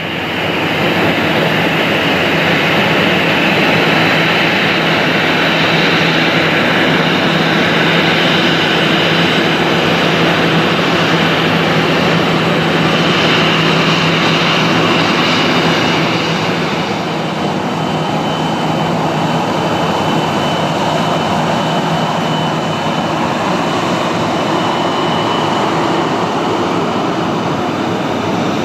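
Airbus A321 jet engines at taxi power as the airliner rolls past close by: a steady rushing jet noise with a low hum and a high whine. It eases off a little about halfway through as the aircraft moves away.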